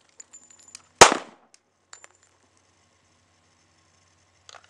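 A single Springfield Armory XD pistol shot about a second in, with a short fading echo: the final head shot of a two-to-the-chest, one-to-the-head drill. Faint metallic clinks come just before and after it.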